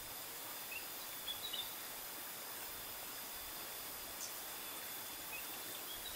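Faint outdoor ambience: a steady high hiss with a thin, even insect whine, and a few short bird chirps, a small cluster about a second and a half in and single ones later.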